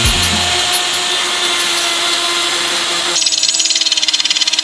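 Cordless drill running at speed, boring a hole through a metal mounting plate with a steady motor whine. About three seconds in the sound changes to a fast, even chatter as the bit works through the metal.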